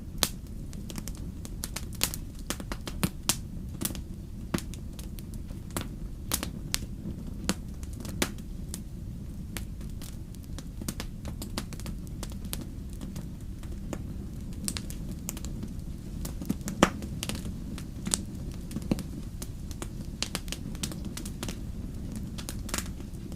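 Wood campfire burning, crackling with irregular sharp pops and snaps over a steady low rumble; the loudest pop comes about two-thirds of the way through.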